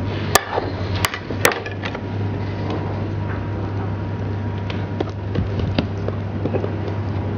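Kitchen knife clicking sharply three times against a round metal baking tray in the first second and a half, then faint light ticks as the dough is handled, over a steady low hum.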